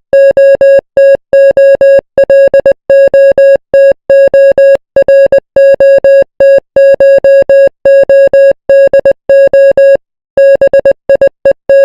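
Morse code played as a loud, buzzy electronic beep of one steady pitch, keyed on and off in short dots and longer dashes, with a brief pause about ten seconds in.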